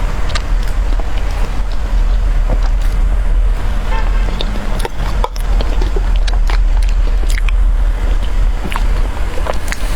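Close-miked eating sounds of a soft tiger skin dessert being chewed: many short, wet mouth clicks scattered irregularly over a steady low rumble.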